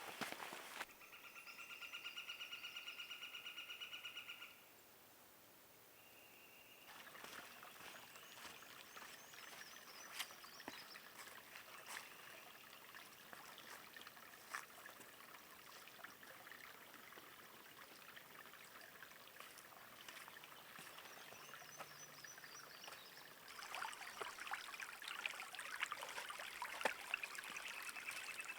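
Quiet woodland ambience: about a second in, a buzzing, pulsing trill lasts some three seconds. Then come scattered light footsteps and ticks on the trail, and near the end a shallow stream trickles louder.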